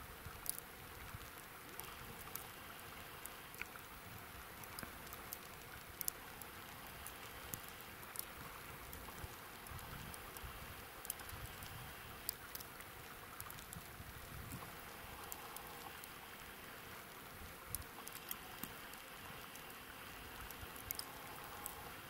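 Faint open-air ambience of wind and river water: a steady hiss with gusty low rumbles of wind on the microphone, and scattered sharp little ticks.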